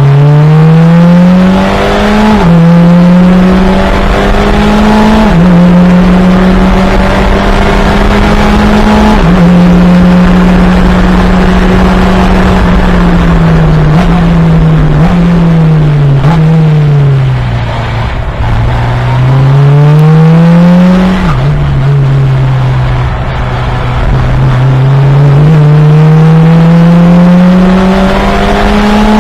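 Fun Cup race car's engine pulling hard through the gears: the pitch climbs and drops sharply at each upshift. Around the middle there is a series of quick downshifts with short rises between them, as under braking for a corner, before it accelerates up through the gears again. A steady hiss runs underneath.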